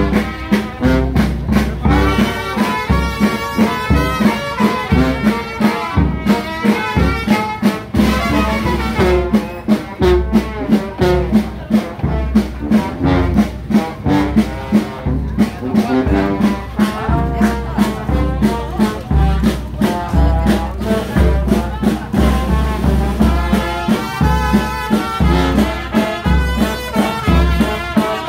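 Brass band playing a lively tune, trumpets and trombones over a bass drum beating steadily about twice a second.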